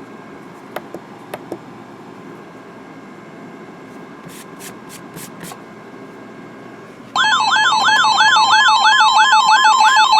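Faint radio hiss with a few clicks, then about seven seconds in a loud electronic alert tone starts: a warbling sweep rising about three times a second over a steady beeping tone. It is an emergency-alert receiver announcing an incoming severe weather warning.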